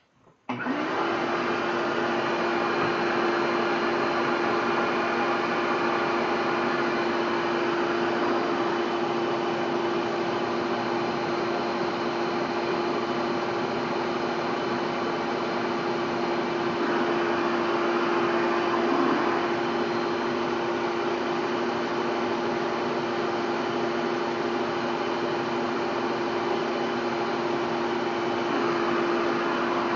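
Shop vacuum switched on about half a second in and running steadily, with one steady hum under the rush of air, forcing air through a car intercooler on a homemade flow bench. Its sound shifts slightly a few times.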